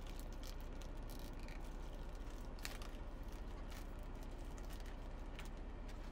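Clear plastic deli container crackling and clicking in the hands as slices of meat are peeled out of it, with scattered light clicks, the sharpest about two and a half seconds in. A steady low hum runs underneath.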